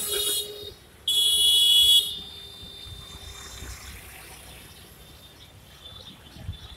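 Vehicle horns honking in street traffic: a short high-pitched honk at the start, then a louder, steady honk about a second in that lasts about a second, followed by a general background of traffic and crowd noise.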